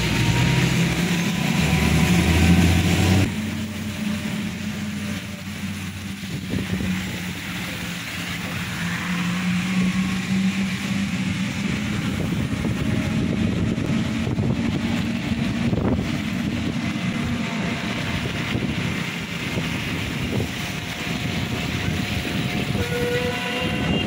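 A vehicle engine running steadily in street traffic, with the hiss of rain over it; the sound changes abruptly about three seconds in.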